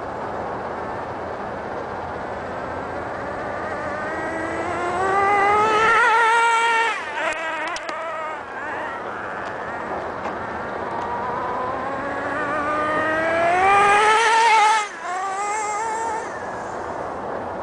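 HPI MT2 nitro RC monster truck's small two-stroke glow engine running at high revs, with a whine that twice rises in pitch and grows louder as the truck speeds past, about six and fifteen seconds in, then drops away sharply each time.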